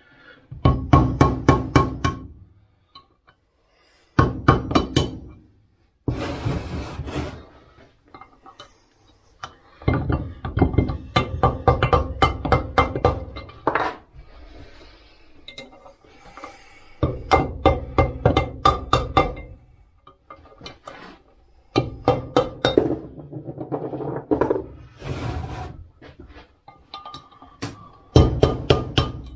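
Flurries of rapid blows from a soft-faced mallet on a wood lathe's cast headstock, driving out the spindle bearings. The metal rings under the strikes, and each flurry lasts one to three seconds with short pauses between.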